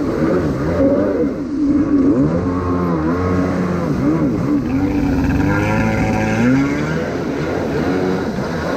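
Kawasaki X2 jet ski's 650cc two-stroke engine running through a new waterbox that is louder than the stock one. Its pitch rises and falls over and over as the throttle is worked.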